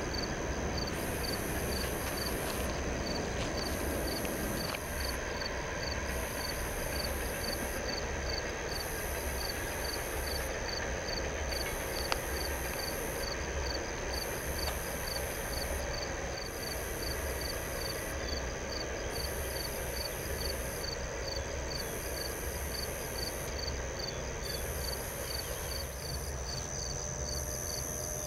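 Summer insects calling at dusk: a high, shrill buzzing phrase repeating about every two seconds, and a quicker chirp at two or three a second, over a steady low rumble.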